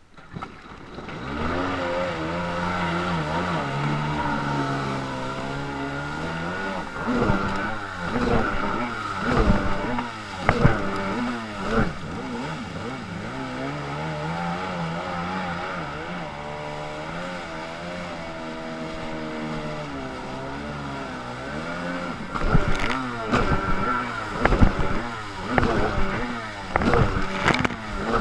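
Yamaha SuperJet stand-up jet ski engine running under way, its pitch rising and falling as the throttle is worked. About a second in it comes up to speed, and there are sharp slaps and splashes of water against the hull, in clusters partway through and near the end.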